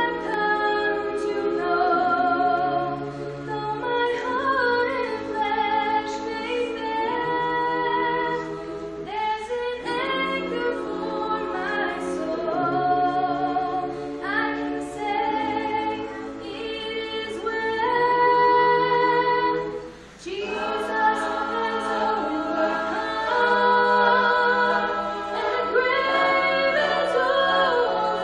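Youth a cappella group of mixed women's and men's voices singing a song in chordal harmony through handheld microphones, with no instruments. The singing breaks off briefly about two-thirds of the way through, then resumes.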